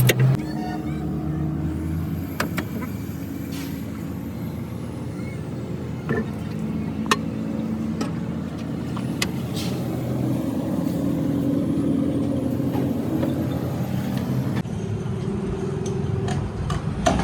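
A motor vehicle's engine running, a steady mechanical hum with a few sharp clicks over it.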